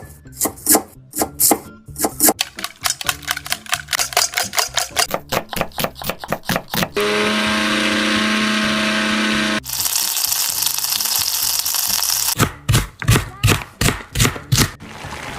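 A string of cooking sound effects: a fast run of knife chops on a cutting board, then a few seconds of a blender motor running with a steady hum, then a few seconds of a high hiss, then more quick chops.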